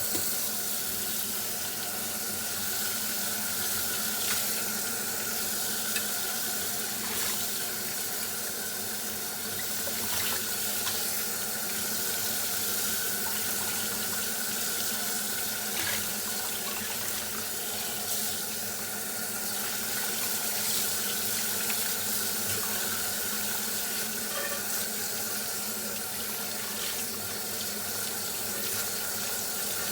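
Dishes being washed under a running kitchen tap: steady water running into the sink, with a few brief knocks of dishware.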